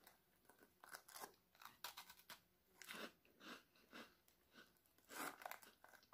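Crisp round biscuit being bitten and chewed: a run of soft, short crunches, the loudest about five seconds in.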